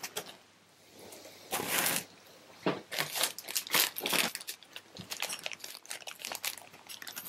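Plastic packaging crinkling and rustling as it is handled, with one longer rustle about a second and a half in and then a run of quick, irregular crackles.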